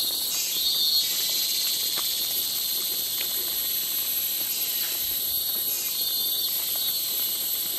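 Dense chorus of Bornean rainforest insects, which the narrator takes for cicadas, shrilling steadily at a high pitch. A louder layer swells in near the start and fades, then comes back about six seconds in.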